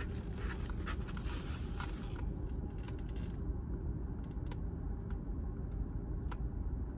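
Cardboard takeout box rustling and scraping as it is opened and handled, over a steady low hum inside a car. After about three and a half seconds the rustling stops, leaving only a few light clicks.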